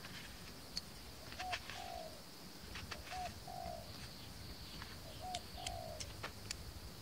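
A dove cooing three times in two-note phrases, a short note followed by a longer one, repeating about every two seconds. Light clicks and taps over a steady high hiss.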